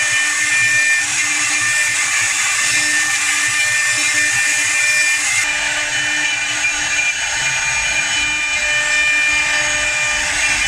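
CNC wood lathe carving a turning square wooden blank: the router spindle runs with a steady high whine over the noise of the bit cutting the wood.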